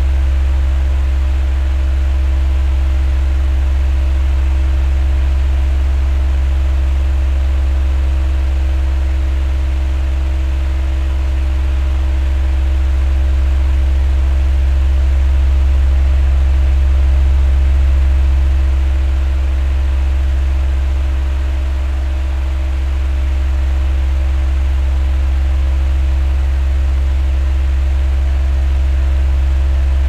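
Oscillating electric pedestal fan with three blades running steadily: a deep motor hum under an even rush of air, with a few faint steady tones above it. The level swells slowly past the middle and eases back a little later.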